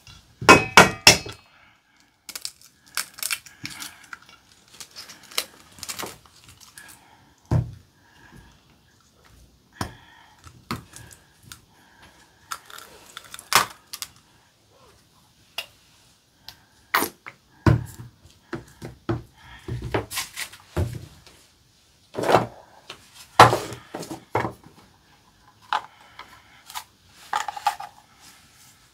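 Kitchen handling sounds around a stainless steel mixing bowl: an egg cracked against the bowl's rim near the start, then scattered knocks, taps and clinks as bottles and containers are picked up and set down on the table, with a few duller thuds.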